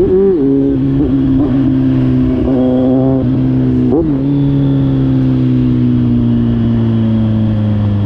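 Kawasaki Z900 inline-four running through an SC-Project GP1 aftermarket exhaust. It gives a few short throttle blips, then the revs fall slowly and smoothly for the last few seconds.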